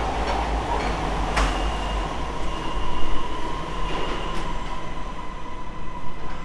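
Siemens Inspiro metro train standing at the platform, its equipment humming with a steady high whine. A sharp clunk comes about a second and a half in as its doors and the platform screen doors slide open.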